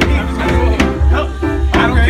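Piano playing a repeating groove of sustained chords over a heavy bass line, with a sharp hit marking a steady beat about once a second.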